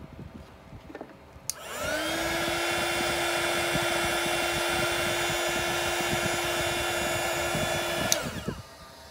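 Handheld embossing heat gun clicked on, its fan motor spinning up to a steady whine over a rush of blowing air, then clicked off near the end and winding down in pitch.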